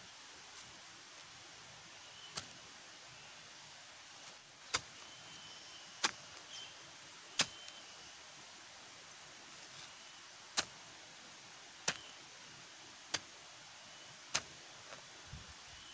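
Steady hiss of rain with sharp single knocks repeating at a fairly even pace, about one every second and a third, from about two seconds in.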